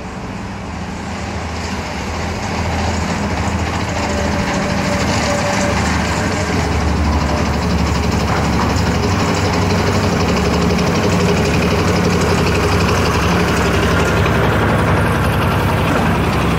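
Three-cylinder Lister diesel engine of a small narrow-gauge locomotive running steadily as it hauls passenger coaches, getting louder over the first few seconds as it draws near and then holding steady.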